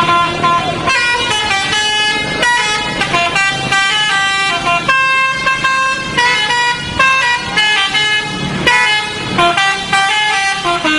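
Bus 'telolet' multi-tone air horn playing a melody: a run of held notes stepping up and down in pitch, several tones sounding together, with a longer held note about halfway through.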